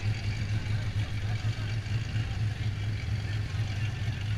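Off-road vehicle's engine idling steadily close by, a low, even hum with a slight pulse.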